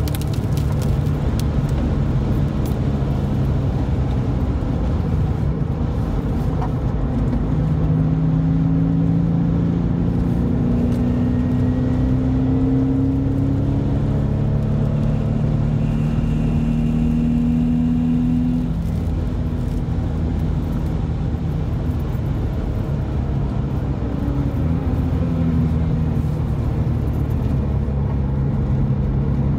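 Porsche 911 (996) water-cooled flat-six engine and tyre/road noise heard from inside the cabin while driving. The engine note climbs steadily a few times under acceleration and eases back between.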